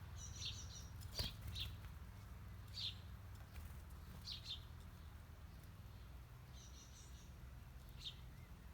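Small birds chirping now and then: short, high chirps a second or two apart, some in quick trills, over a faint low rumble.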